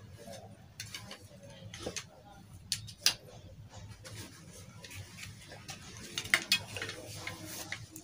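Scattered clicks and knocks of a wooden wayang golek rod puppet being handled, its arm rods and body knocking together as it is gripped and lifted, with cloth rustling. The sharpest knocks come about three seconds in and again a little past six seconds.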